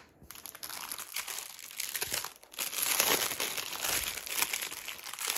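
Packaging crinkling and rustling as it is handled, with a short lull a little over two seconds in.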